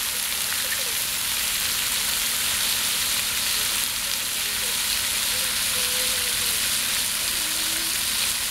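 Splash-pad fountain jets and a fire-hydrant sprayer spraying water that splatters on the wet concrete, a steady hiss.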